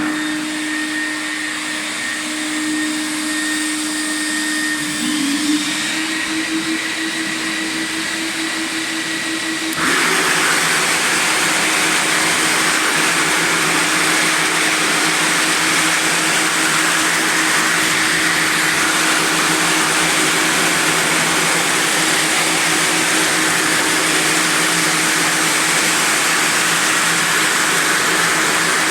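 Quadro floor sanding machine running at 600 rpm with grit-70 diamond sanding discs, coarse-sanding old mosaic parquet: a steady motor hum over a grinding hiss. About ten seconds in the sound suddenly gets louder and fuller, then holds steady.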